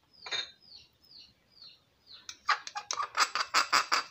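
A small bird chirps repeatedly in the background, short falling chirps about twice a second. From about two seconds in, rapid clicking and clinking of a spoon and glass bowls takes over as the loudest sound.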